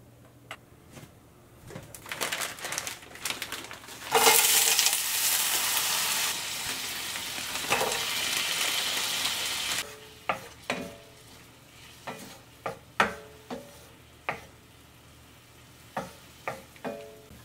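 Food dropped into a hot frying pan about four seconds in, sizzling loudly for about six seconds, then a spatula knocking against the pan a dozen or so times as the food is stirred.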